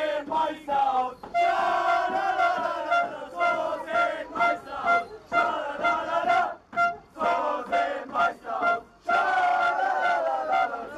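A crowd of men chanting and singing together in unison, a loud rhythmic victory chant with held notes, broken by shouts.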